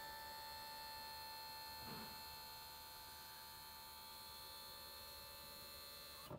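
Electric motor of a John Deere Gator's power bed-lift linear actuator running as it retracts its rod: a steady whining hum that cuts off suddenly near the end, when the rod is fully drawn in.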